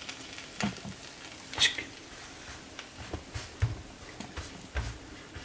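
Filled gözleme dough being laid into a frying pan: scattered soft clicks and a few dull low thumps of handling.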